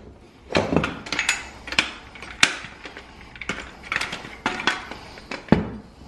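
Clicks, knocks and scrapes of a Club Car Precedent brake pedal assembly being twisted around and worked out of its metal pedal-group housing, irregular and handled, with a sharper knock about two and a half seconds in and another about five and a half seconds in.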